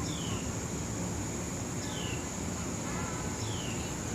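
A bird in the forest below repeating a short, falling whistled note about every two seconds, over a steady high-pitched insect drone and a low rumble of wind and lift noise.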